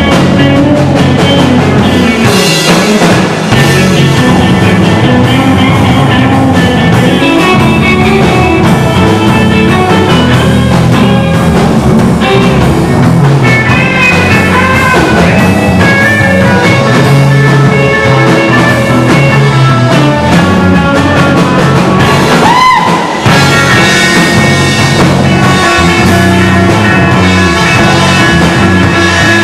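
Rock band music with electric guitar and drum kit playing steadily and loud, and a swooping glide in pitch about three-quarters of the way through.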